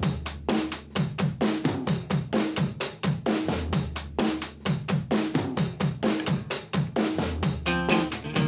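Background music: a drum kit playing a fast, busy beat, with pitched instruments coming in near the end.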